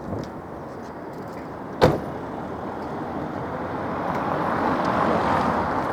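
SAAB 900i running, its noise building steadily through the second half, with one sharp click just before two seconds in. No engine knock can be heard.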